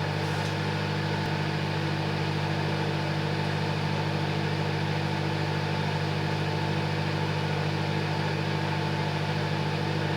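Silvercrest SMWC 700 D1 microwave oven running at full power, a steady low electrical hum with fan noise.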